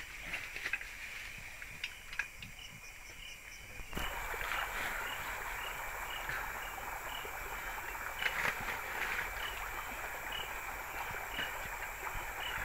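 Water sloshing and splashing as people wade through a shallow creek, with a regular insect chirp behind it. The sound steps up abruptly and gets louder about four seconds in.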